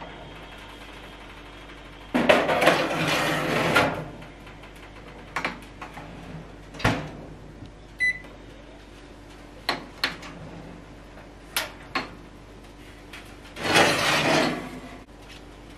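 A metal baking tray scraping along the rack rails of a wall oven, then a sharp clunk and a short electronic beep about eight seconds in. A few clicks follow, and near the end a tray scrapes out along the rails again, all over a faint steady hum.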